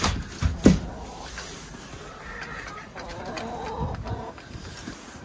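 Chickens clucking, with a run of wavering calls in the middle, over wind rumbling on the microphone that is loudest in the first second.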